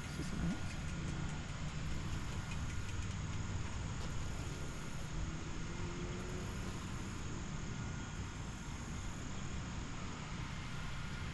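Steady low rumble of wind buffeting a wrist-mounted action camera's microphone during a bike ride, with no distinct events.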